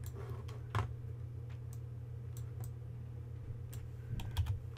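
Scattered clicks of a computer mouse over a steady low hum. The loudest clicks come about a second in and near the end.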